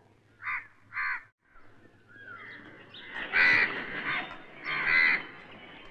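Crows cawing: two short caws, then after a pause two longer, louder caws, over a faint outdoor background with a few small falling bird chirps.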